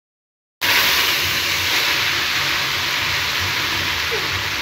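Boiled spaghetti dropped into hot oil and butter in a pot, the fat sizzling loudly. The sizzle starts suddenly about half a second in and holds steady, easing only slightly.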